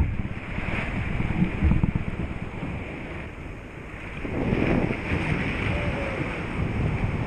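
Sea surf breaking and washing around a sea kayak, with wind buffeting the microphone; a wave surges louder about four seconds in.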